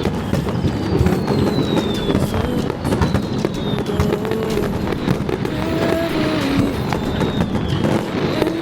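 Fireworks going off in quick succession, a dense run of sharp pops and crackles with no break, over music played through loudspeakers.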